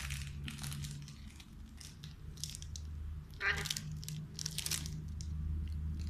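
Plastic biscuit wrapper crinkling and crackling in short irregular bursts as an Alexandrine parakeet takes hold of it in its beak. One brief parakeet call about halfway through.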